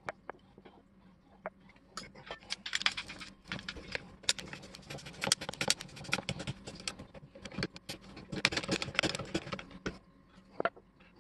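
1924 Walker Badger 3/4-ton rack jack being worked by hand: rapid metal clicking and rattling from its ratchet mechanism on the steel rack, freshly oiled inside. The clicking runs dense from about two seconds in until about ten seconds, with a few scattered clicks before and after.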